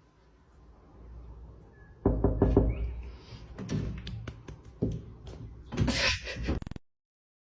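A series of irregular knocks and taps over a low rumble, starting about two seconds in and cutting off suddenly near the end.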